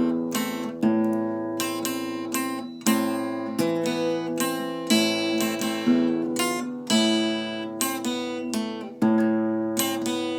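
Acoustic guitar playing an enka melody: plucked melody notes and strummed chords, each starting sharply and ringing away, about one a second.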